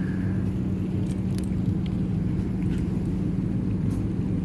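Steady low hum of a stationary diesel passenger train idling at the platform.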